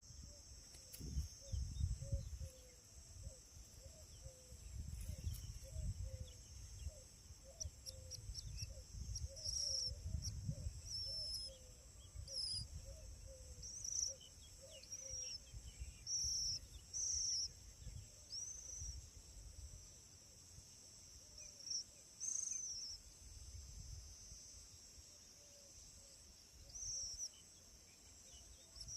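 Outdoor birdsong ambience: short high bird chirps repeat throughout over a steady high insect drone, with a run of short lower notes in the first half. Low rumbling noise comes and goes and is the loudest part.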